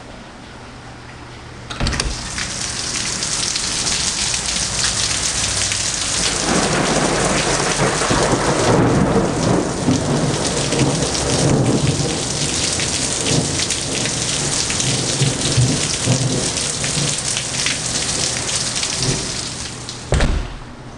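A door opens onto a heavy rainstorm: a click, then the loud, steady hiss of heavy rain pouring down outside, with a deeper rumbling joining about six seconds in. Near the end the door shuts with a thump and cuts the rain off.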